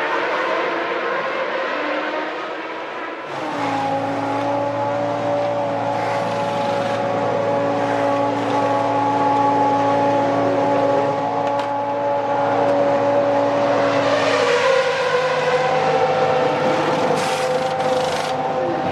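Formula One car engines running at high revs. The sound changes abruptly about three and a half seconds in, then holds a steady pitch for a long stretch before shifting again near the end.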